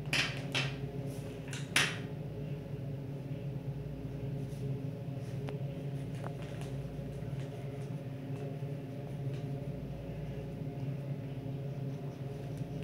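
Crayons knocking on a glass tabletop, three sharp clicks in the first two seconds as one crayon is put down and another picked up. After that only a steady low hum with a few faint ticks.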